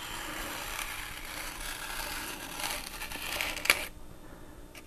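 Hobby knife blade scoring along a scribed line in rigid balsa foam, a soft scratchy scraping that stops with a sharp tick about four seconds in.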